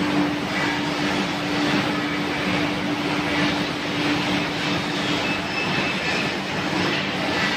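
Automatic wood resaw machine running and sawing boards as they feed through on its conveyors: a steady motor hum under a continuous broad hiss of the blade and belts.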